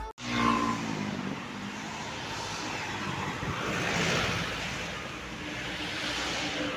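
Roadside traffic noise, with a vehicle passing by loudest about four seconds in.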